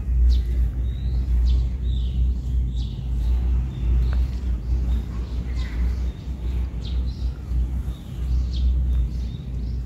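Small birds chirping now and then, short high chirps and quick pitch slides, over a steady low rumble.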